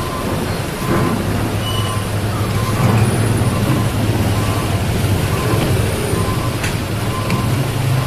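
Large engine running with a steady low hum that gets louder about a second in.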